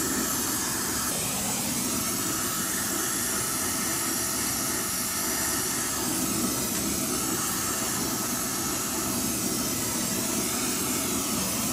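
Brazing torch flame burning with a steady hiss as it heats a copper refrigerant line to braze a leak shut.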